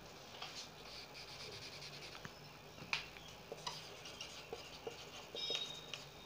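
Marker pen writing on a whiteboard: faint scratchy strokes and light taps, with a short high squeak near the end.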